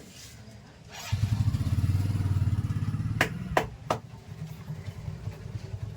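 A low, fast-pulsing motor starts about a second in, is loud for about two seconds, then runs on more quietly. Three sharp snaps come close together in the middle.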